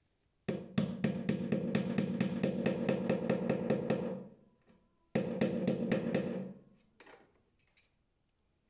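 A small motor-driven tool runs in two bursts, the first about three and a half seconds long and the second about a second and a half. Each burst carries a steady hum and a rapid, even clicking at about seven clicks a second. A few light knocks follow near the end.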